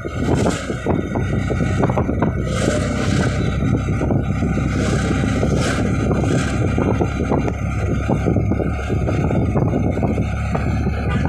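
A vehicle running steadily along a road, engine and road noise, with wind blowing on the microphone.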